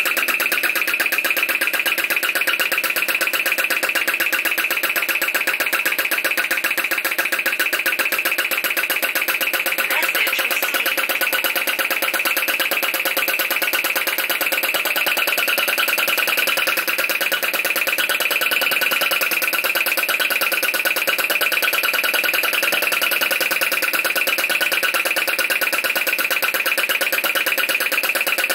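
Steady, rapidly pulsing electronic buzz of mobile phone interference picked up by the recording.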